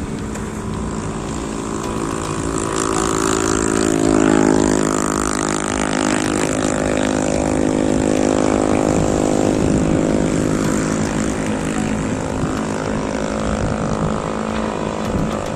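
Excavator's diesel engine running, revving up a few seconds in and holding higher revs under load before easing back down after about ten seconds.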